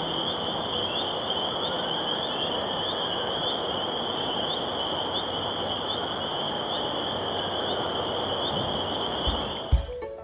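Chorus of spring peepers calling from a vernal pool: a dense, steady high-pitched peeping with individual rising peeps standing out, over a constant hiss. Music with mallet percussion starts right at the end.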